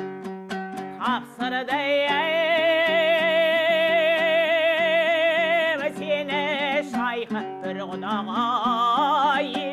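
Kazakh zhyr singing to a strummed dombra. After about a second of dombra alone, the singer comes in and holds a long note with a wide vibrato, then holds another near the end.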